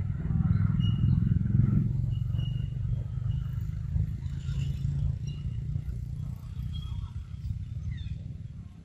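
A motor vehicle engine running with a steady low rumble, loudest over the first two seconds and easing off after. Short high chirps come through now and then.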